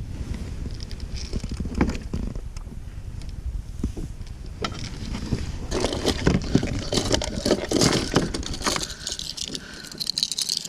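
Wind rumbling on the microphone, with scattered clicks and a stretch of dense rattling and clattering from about six to nine seconds in.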